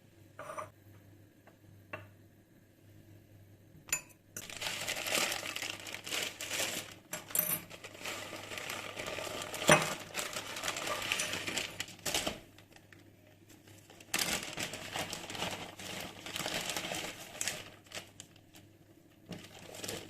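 Kitchen food-preparation sounds: utensils clinking and scraping against dishes in two long stretches, with a pause between them and a few single clicks before and after.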